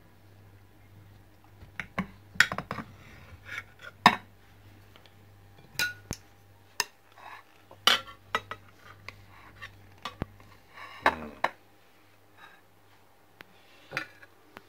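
A steel kitchen knife clinking and scraping on a ceramic plate as a glazed layer cake is cut and a slice is lifted out. The clicks are scattered and irregular, starting about two seconds in.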